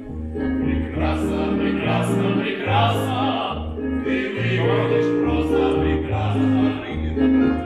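A stage-musical song: several voices singing together over a recorded backing track with a bass line.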